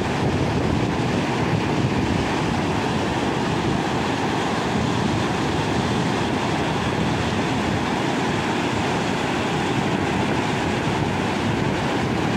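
Muddy floodwater rushing over rock ledges in broad rapids: a steady, dense rushing of churning water.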